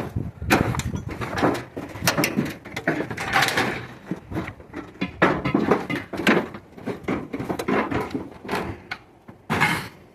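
Scrap items being shifted, dropped and dragged: an irregular run of knocks, clatters and scrapes, several a second at times.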